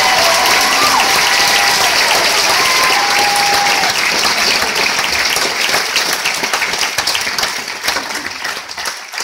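Audience applauding, a dense steady clapping that thins into scattered separate claps near the end and dies away.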